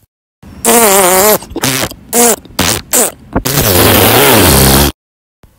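Comic fart noises: a wavering pitched one, several short blasts, then one long rasping fart of over a second that cuts off suddenly.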